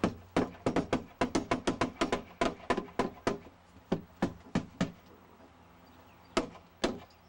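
Claw hammer striking the wooden framing overhead: a quick run of about three or four blows a second for nearly five seconds, then a pause and two last blows near the end.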